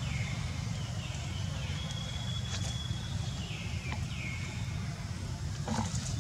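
Low, steady outdoor rumble, with faint high-pitched calls repeating about once a second, each stepping down in pitch, and a few light rustles near the end.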